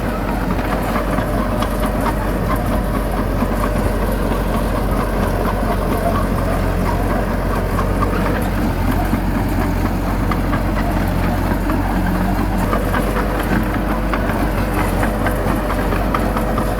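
Bulldozer's diesel engine running steadily, with a low hum and a light clatter throughout.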